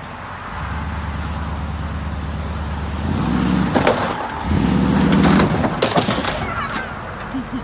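Lifted GMC pickup's engine running and then revving harder as it climbs onto a small sedan. From about four seconds in come several sharp cracks and crunches as the truck's tyres crush the car's hood and roof.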